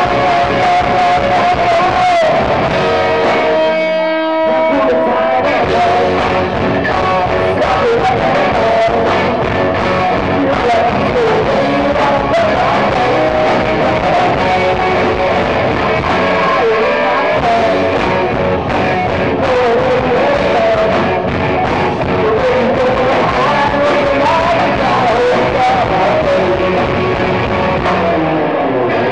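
Rock band playing live: lead vocals over electric guitars, bass and drums, loud and heard from the crowd. The low end drops out for a moment about four seconds in.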